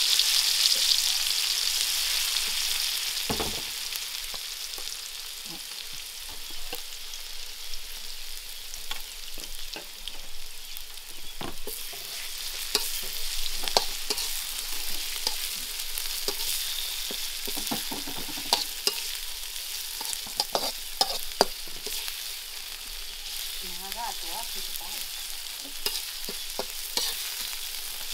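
Food sizzling in hot oil in a blackened wok while it is stirred and scraped with a metal ladle, with scattered clicks and scrapes of metal on metal. The sizzle is loudest at the start and eases off over the first few seconds, then stays steady.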